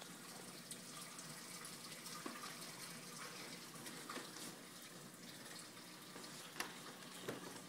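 Faint, steady trickle of water circulating in a saltwater reef aquarium, over a low steady hum, with a few soft clicks.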